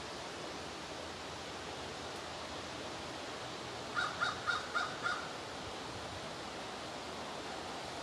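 Steady rushing background noise, with a quick run of five harsh, caw-like animal calls about four seconds in.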